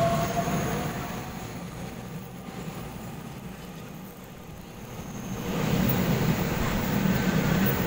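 A Taiwan Railways EMU3000 electric multiple unit running past close by along the platform. Its motor whine rises in pitch at the start, and it pulls away over a steady rumble of wheels on rail that swells again about five and a half seconds in.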